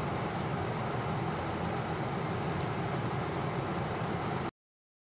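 Steady road noise of a vehicle driving on a dirt road, heard from inside the cab: engine and tyres on the dirt surface. It cuts off suddenly about four and a half seconds in.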